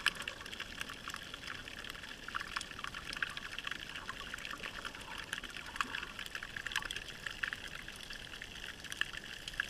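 Underwater ambience in shallow water picked up by the camera: a steady watery hiss with a dense crackle of small, faint clicks.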